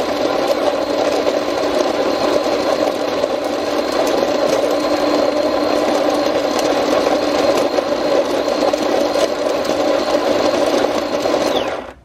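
Electric conical burr coffee grinder (Beguko) running, its motor grinding whole coffee beans with a steady hum, then cutting off abruptly just before the end.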